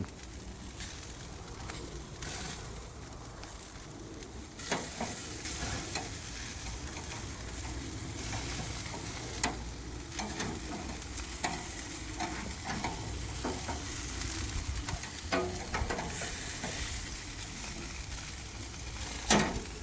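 Chicken sizzling in a frying pan, with occasional sharp taps; the sizzle grows louder about five seconds in.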